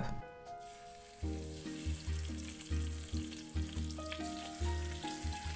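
Marinated chicken thighs sizzling in hot olive oil as they are placed into a steel pot, with light stirring. Background music plays over it, its bass line coming in about a second in.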